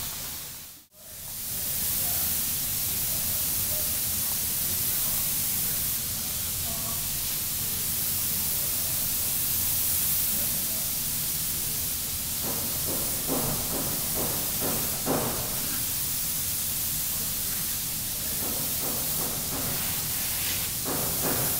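Airbrush spraying paint: a steady hiss of compressed air, with a brief dropout about a second in.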